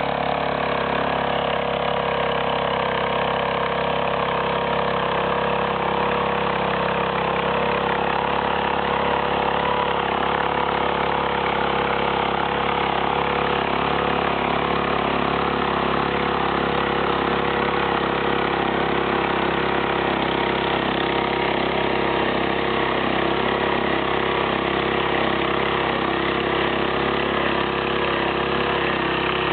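A farm machine's engine running steadily at one even speed, with no change in pitch or load.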